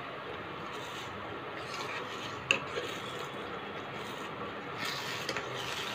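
A spatula stirring and scraping thick, bubbling moong dal with gongura leaves around a pan, with one sharp knock about two and a half seconds in.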